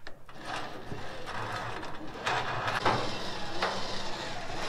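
Electric trailer winch running, its gears turning as it reels in cable to pull a side-by-side up onto a flatbed trailer; it grows louder for about a second midway through.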